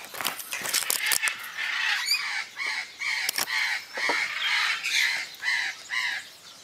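Caracal kitten calling: a run of short, high calls, about three a second, starting about two seconds in. Before the calls come rustling and knocks from the camera being moved in the straw.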